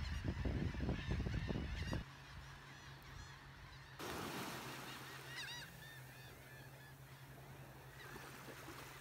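Many seabirds calling over one another, short rising-and-falling cries repeating throughout. A low rumble fills the first two seconds, then a faint steady low hum.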